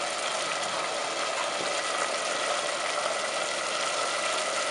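Steady background hiss with a faint, even mechanical hum, unchanging throughout, with no distinct knocks or scrapes.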